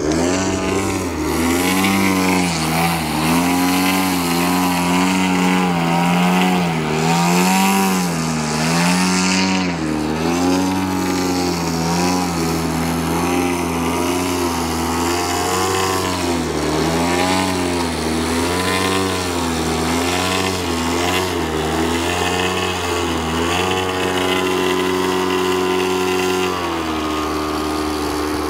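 Single-cylinder two-stroke gasoline engine (DLE 50 cc) of a Yak 54 RC aerobatic plane, running hard with its pitch rising and falling as the throttle is worked in torque manoeuvres. Near the end it settles to a steady, lower speed.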